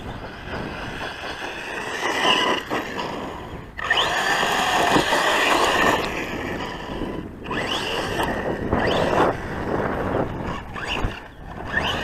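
Losi Lasernut U4 radio-controlled truck's electric motor whining as it revs up and down in repeated rising and falling glides, with the rasp of tyres on loose dirt.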